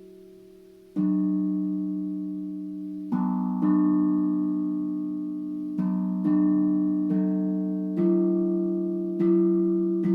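Steel tank drum struck one note at a time, about eight strikes starting about a second in. Each note rings on and slowly fades, overlapping the next.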